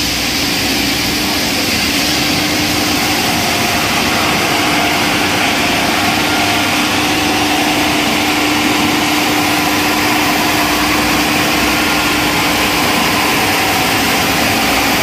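Double-sided wide-belt wood sanding machine running: a loud, steady mechanical rush with a constant hum.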